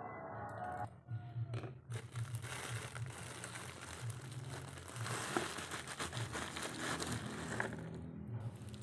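Shallots being handled: dry, papery skins and wrapping crinkling and crackling with scattered sharp ticks, over a steady low hum. A short tune ends about a second in.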